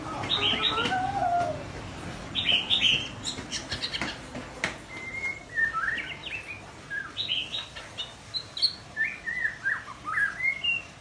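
A young white-rumped shama practising its song: short, broken phrases of whistled and chattering notes, each lasting about a second, with brief pauses between them.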